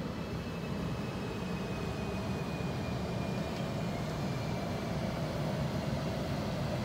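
Electric multiple unit running past along the platform: a steady rumble of wheels on rail, with a faint high whine that drifts slightly lower in pitch.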